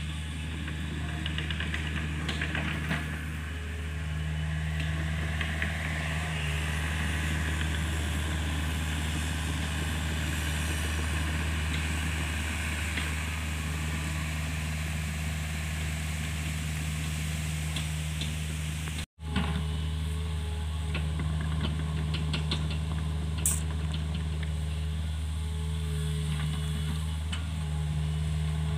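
Hitachi mini excavator's diesel engine running steadily as it works, with scattered light knocks and clanks from the digging. The sound drops out for a moment about two-thirds in.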